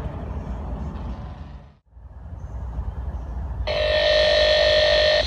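Train rumbling, then after a brief break a locomotive air horn sounds one steady, loud chord about three and a half seconds in, lasting about a second and a half before cutting off sharply.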